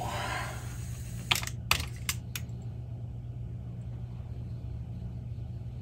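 Cassette deck transport running with a steady low hum, and a quick run of four light clicks from the handled mechanism about a second and a half in.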